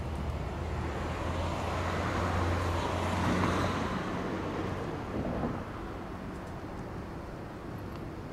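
Distant engine rumble and roar, with a steady low hum underneath, swelling about three seconds in and easing off after about five seconds.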